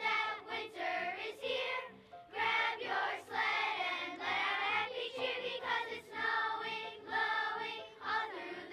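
Children's choir of fourth- and fifth-graders singing a winter song, with a short break between phrases about two seconds in and another near the end.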